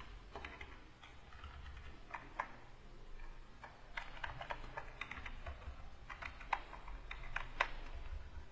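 Computer keyboard keys clicking in short clusters of a few presses, every second or so, over a low steady hum.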